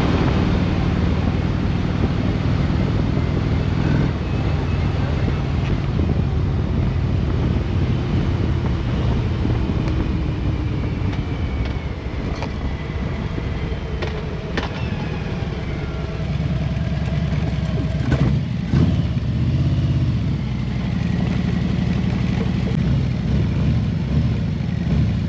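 Harley-Davidson Road Glide's V-twin engine running steadily under way, with wind rush, heard from the rider's seat.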